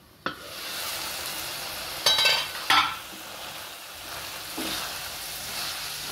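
Potatoes and cauliflower cooking in a steel pan with a steady hiss while a wooden spoon stirs them, scraping and knocking against the pan, loudest twice about two seconds in.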